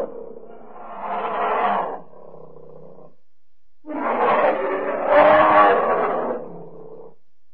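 Bear growl sound effect: a shorter growl about a second in, then after a brief pause a longer, louder growl starting about four seconds in, each trailing off.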